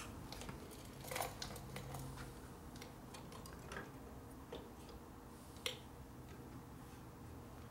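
Faint scattered clicks and small metallic taps of hands handling and fitting the distributor on a 1949 Harley-Davidson panhead engine, with a sharper click about a second in and another near six seconds.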